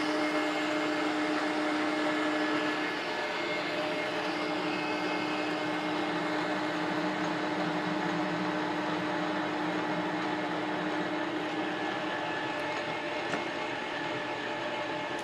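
Metal lathe running at 700 RPM while a carbide turning insert on power cross feed faces the end of a chrome-plated 1045 steel bar, giving a steady machine hum with cutting noise. The lowest tone of the hum fades out about three seconds in.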